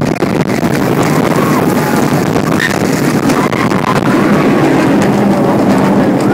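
Roller-coaster ride: a steady rush of wind over the phone's microphone and the rumble of the coaster train on its track, with faint screams from riders now and then.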